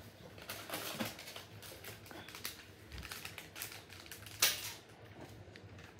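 A run of irregular light clicks and rustles, with one sharper, louder knock about four and a half seconds in.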